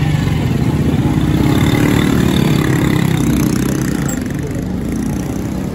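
Motorcycle engine of a tricycle (motorcycle with passenger sidecar) running slowly at close range, loud and steady, a little quieter toward the end.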